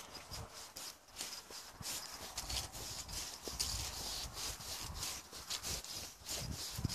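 Footsteps walking on grass and dry fallen leaves, rustling steps with low thuds at about two a second, along with rubbing noise from handling the phone.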